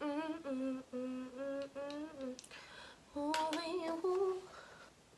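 A woman humming a short tune in held, steady notes, then a second brief, wavering hummed phrase about three seconds in. A few faint clicks fall between the two phrases.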